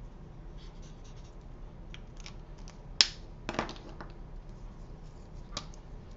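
Stampin' Blends alcohol marker nibs scratching lightly on cardstock, with a sharp plastic click about three seconds in and a few softer knocks just after it, then one more small click near the end, as markers are set down and swapped.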